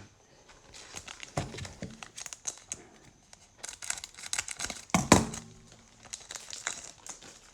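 Crinkling of a trading-card pack's foil wrapper and cards being handled, in short irregular rustles and clicks.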